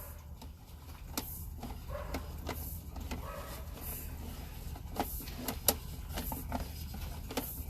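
Sewer inspection camera's push cable being fed down the pipe: a steady low hum with scattered clicks and knocks at uneven intervals.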